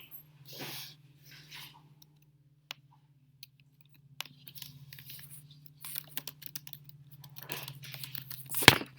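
Scattered small clicks, crunches and rustles over a steady low hum, with one loud sharp click near the end.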